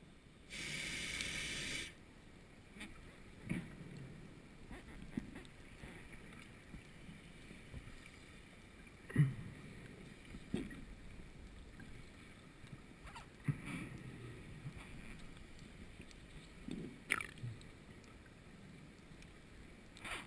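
Scuba regulator heard underwater: one hiss of an inhalation about half a second in, lasting about a second and a half. Then come faint low bubbling sounds and occasional soft knocks.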